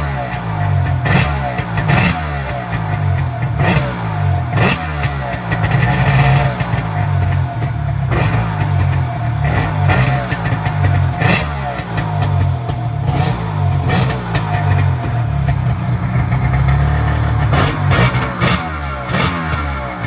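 Kawasaki Ultra 150 jet ski's two-stroke three-cylinder engine running out of the water after a top-end rebuild, its revs repeatedly rising and falling rather than settling to an idle, with sharp cracks now and then.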